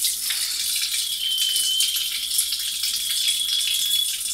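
Kitchen tap running steadily into the sink, a constant hiss of water, with a faint high whistle from about a second in until near the end.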